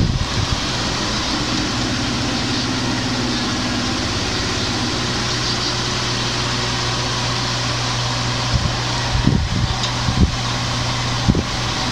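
A steady mechanical hum with an even hiss over it, and a few low bumps about nine to eleven seconds in.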